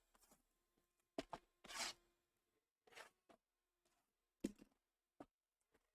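Faint, scattered rustles and taps of Panini Prizm Fast Break card packs being handled as they are taken out of their boxes: a handful of short handling sounds with near silence between.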